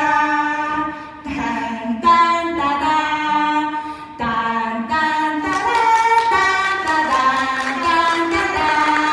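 A small group of women singing a song together into microphones, with long held notes.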